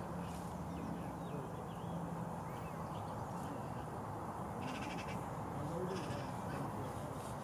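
Steady outdoor lakeside ambience, a low even hiss, with faint small-bird chirps and a brief distant animal call about five to six seconds in.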